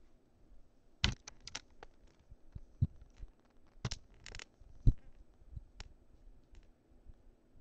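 Furry fursuit handpaw bumping and rubbing against the camera, heard as irregular clicks, scratches and knocks, the loudest about five seconds in.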